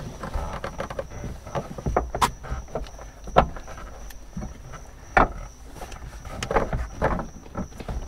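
Car rear seat back sections being shifted and pushed into place by hand: rustling and scraping of the carpeted seat panels with several sharp knocks as the frame bumps against its mounts, the loudest about three and a half and five seconds in.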